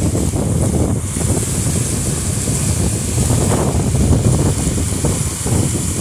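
Strong storm wind gusting and buffeting the microphone, a loud rumbling noise that rises and falls with the gusts; about a second in, a steady high hiss joins it.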